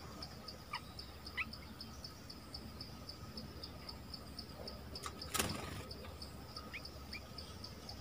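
An insect chirping in even pulses, about four a second, with a few short rising bird chirps, two early and two late, and one sharp knock a little past the middle.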